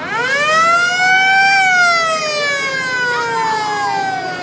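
Fire truck siren wailing. It climbs quickly over about a second, falls slowly over the next three, and starts rising again at the very end.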